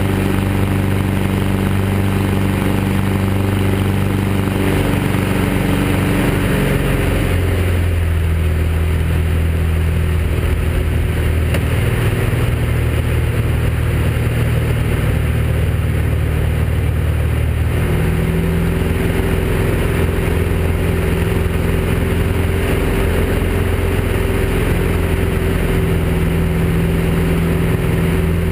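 Fournier RF-4 motor glider's single propeller engine running steadily, heard from inside the cockpit over a rush of wind. The engine note shifts about seven seconds in and again about eighteen seconds in, as the power is changed on the approach to land.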